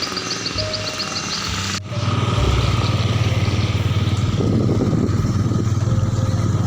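Motorcycle engine running steadily, starting abruptly about two seconds in. Before it comes vehicle noise with a quick run of high ticks.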